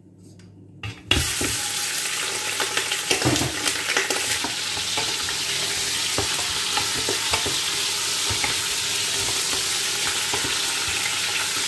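Pieces of washed lamb frying in hot oil in a stainless-steel pot. The loud sizzle starts suddenly about a second in as the meat hits the oil, then runs on steadily with the occasional knock and scrape of a spoon stirring the meat.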